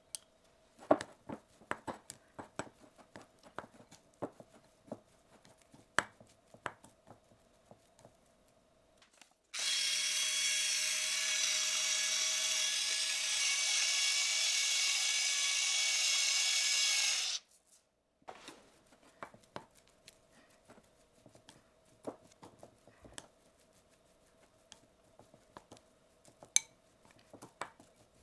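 A small electric kitchen-appliance motor runs with a steady whine for about eight seconds, starting and stopping abruptly. Light clicks and knocks come before and after it.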